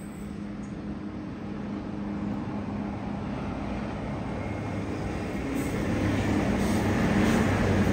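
NSW TrainLink diesel railcar set passing through the station, its engines humming and growing steadily louder as it comes close, with wheel noise on the rails in the last couple of seconds.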